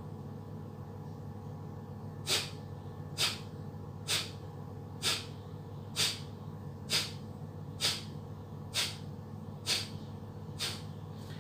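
Kapalbhati pranayama breathing: about ten sharp, forceful exhalations through the nose, about one a second, each pushed out by a quick contraction of the abdomen, with passive inhalation between them.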